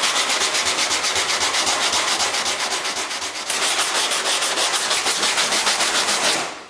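Sandpaper on a small hand sanding block scrubbing over a cured fiberglass-and-resin patch on a fiberglass body panel, in fast, even back-and-forth strokes, several a second. The repair is being sanded down to blend into the surrounding panel.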